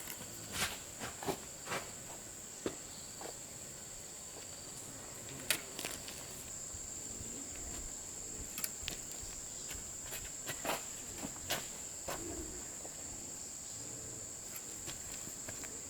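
Insects, crickets or similar, chirring steadily in one high-pitched drone, growing a little louder about halfway through. Scattered short clicks and knocks sound over it.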